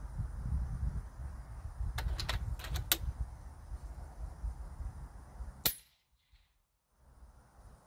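A quick run of sharp clicks about two seconds in, then one sharp shot from a .30 caliber SKOUT Epoch PCP air rifle near the end, over a steady low rumble.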